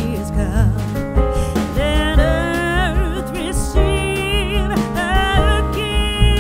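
Background music: a song with a singing voice over instrumental backing with a steady bass.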